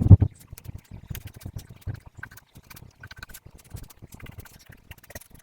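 Milk paint being stirred in a plastic cup, with a knock at the start and then many irregular light clicks and taps of the stirrer against the cup.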